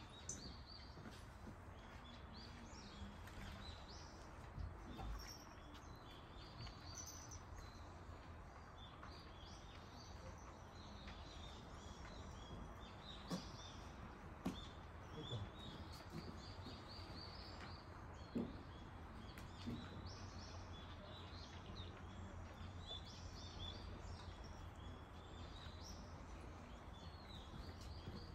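Small birds chirping over and over against a faint, steady low outdoor rumble, with a few soft clicks now and then.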